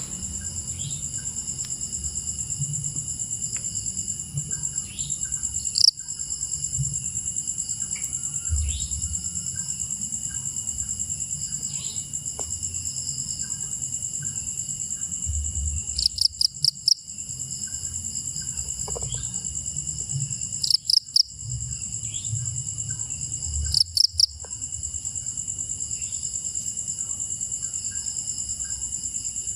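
Crickets trilling in a steady, high, rapid pulse, with a louder chirp in quick runs of three or four pulses about four times. Faint short bird calls come and go.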